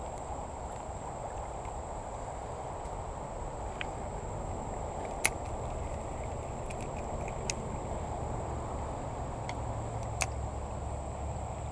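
Creek ambience: a steady rush of flowing water with a steady high insect drone over it, and a few brief sharp clicks scattered through.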